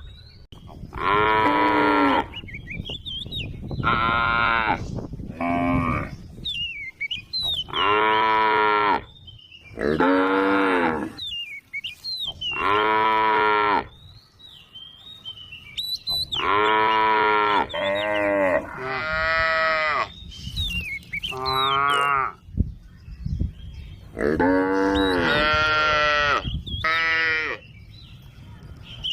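Cows mooing again and again: a dozen or more long, drawn-out calls, one after another, some overlapping.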